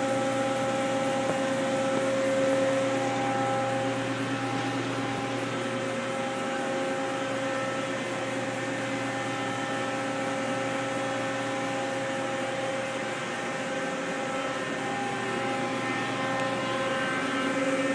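Steady hum of a powered-up 1997 Mazak Quick Turn 20 CNC lathe standing idle, with several steady tones over it.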